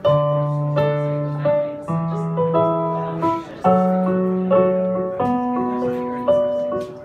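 Live band starting a song's instrumental introduction: sustained chords that change about every two seconds, each struck with a fresh attack.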